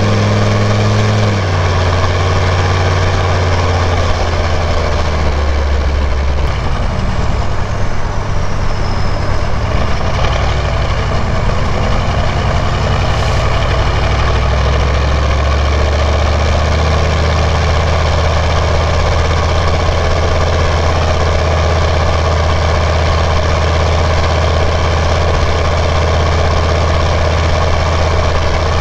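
6.5 L turbo-diesel V8 of a 1996 Chevy K1500 running under load through a straight-piped 4-inch turbo-back exhaust. The engine note drops about a second and a half in and shifts again around the middle. A faint high turbo whistle dips and rises for a few seconds partway through.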